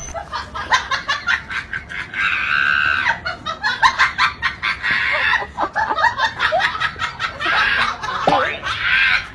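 Animal calls: a rapid run of short, sharp notes with several longer, high, wavering calls, about two seconds in, around five seconds in and near the end.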